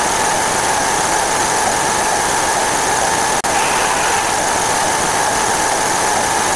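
Counting sound effects running so fast that they merge into one steady, dense noise with a few faint steady tones through it, broken by a very brief dropout about three and a half seconds in.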